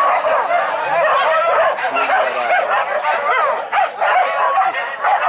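A pack of boar-hunting dogs yelping and barking together as they run, many high calls overlapping without a break.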